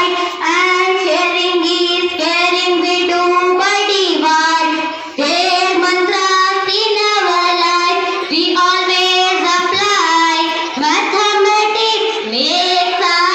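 A child singing a slow melody with long held notes and short breaths between phrases, with no instruments to be heard.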